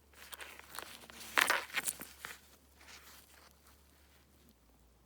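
Crinkling, crackling handling noises, like something being rustled or moved about, loudest about a second and a half in and dying away after two and a half seconds to faint room tone.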